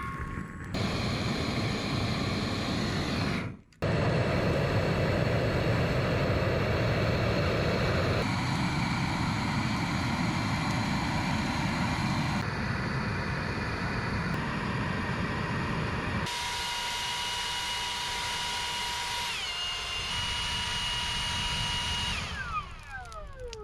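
A machine motor running steadily in several short clips cut together. Near the end a whine falls in pitch as it winds down.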